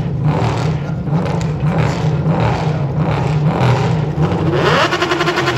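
Drag racing motorcycle engine revving in short repeated surges, about two a second, then revving up near the end and holding a steady high pitch.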